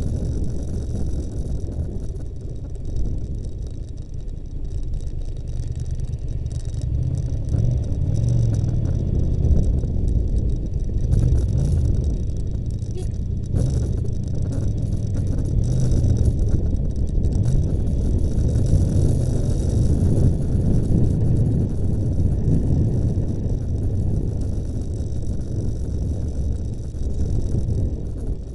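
Steady low road and engine noise of the camera's own vehicle creeping through queued traffic, with a faint engine note that wavers in pitch as it speeds up and slows.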